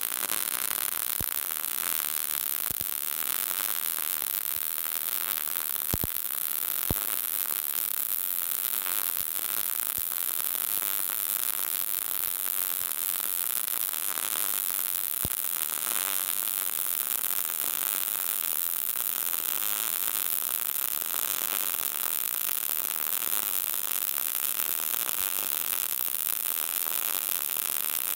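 Short-circuit MIG welding arc running steadily with a fine, even frying crackle, with a few sharper pops. It is a vertical-up fill pass run at lowered voltage and wire feed speed to cool the weld pool.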